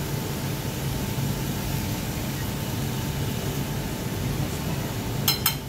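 Steady low hum of kitchen ventilation running, with two sharp clicks near the end.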